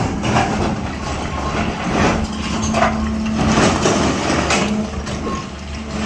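Long-boom SANY 365H excavator's diesel engine running steadily, with irregular crunching and scraping of earth and stone as the bucket digs.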